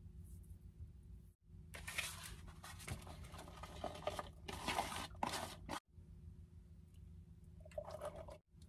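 Crinkling, rustling handling noises, loudest in the first half, over a steady low hum; the sound breaks off abruptly twice.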